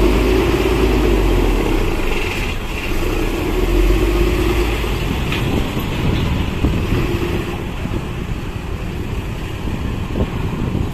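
A large diesel bus engine running as the bus moves on the pier. It is a low rumble, strongest for the first few seconds and then easing into steady vehicle noise.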